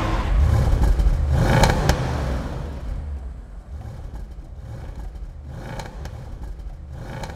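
Car engine revving loudly, then dropping to a quieter steady low running about two and a half seconds in, with a couple of sharp clicks early on the loud part.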